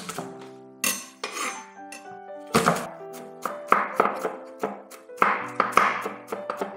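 Chef's knife on a bamboo cutting board crushing and mincing garlic: a sharp knock at the start as the flat of the blade smashes the cloves, then quick repeated chopping strokes from a little over halfway through, over background music.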